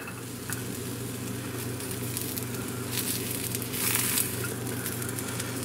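Eggplant slices sizzling gently in oil in a frying pan on low heat, with a few light scrapes and taps of plastic spatulas as the slices are turned. A steady low hum runs underneath.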